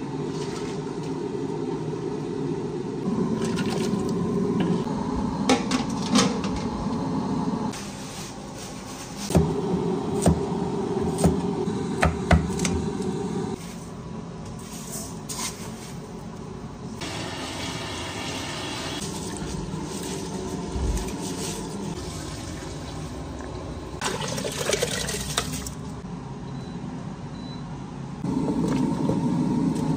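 Kitchen sounds of water pouring and splashing, with clinks and knocks of metal pots and utensils scattered through.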